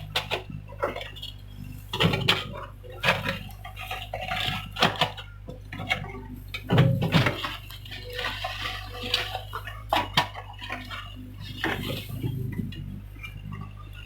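Hyundai excavator's engine running steadily under a string of irregular metallic clinks and knocks from the machine at work.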